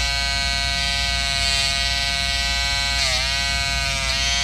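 Wahl Peanut electric clipper buzzing steadily as its blades are pressed against machine embroidery stitches to cut them out. Its pitch dips briefly twice in the second half as the blades catch in the thread.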